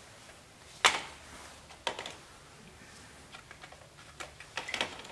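Small hard plastic parts being handled: one sharp click about a second in, a second click about a second later, then a run of lighter ticks and taps. These come from the adhesive syringe and plastic mixing tray just after dispensing the plastic bonder.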